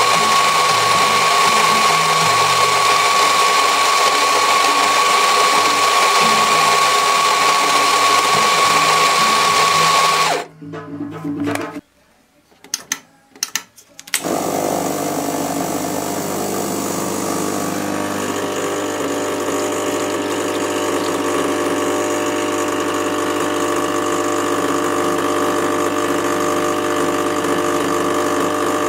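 Coffee grinder running steadily for about ten seconds, grinding beans. A short quieter pause with a few clicks follows, then the espresso machine's pump hums steadily as the espresso runs into the cup.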